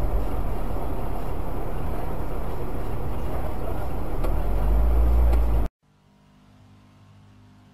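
Dashcam audio from inside a moving car: a steady low rumble of engine and road noise. Near the end it cuts off abruptly to a much fainter steady hum.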